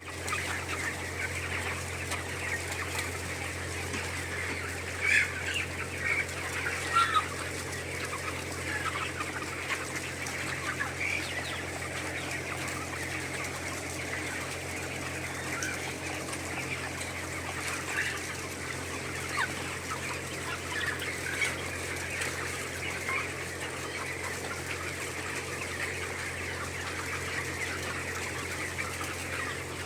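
A large flock of poultry chicks peeping continuously in many overlapping high chirps, with a few louder peeps standing out, over a steady low hum.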